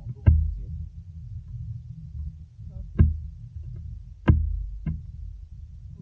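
Four sharp knocks over a steady low rumble, the loudest just after the start and another a little past the middle.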